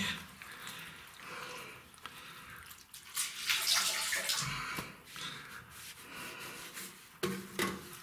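Waste water running out of a Hotpoint-Ariston washing machine's loosened drain-pump filter, trickling and splashing, heaviest about three to five seconds in, with a few light knocks.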